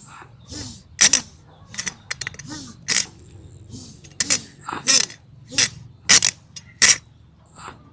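A run of sharp, uneven knocks, about a dozen, each with a short dull ring after it.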